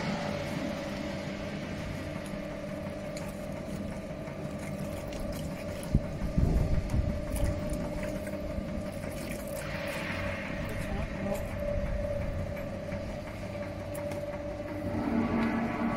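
A running machine hums steadily, with a cluster of low knocks about six seconds in and voices talking in the background.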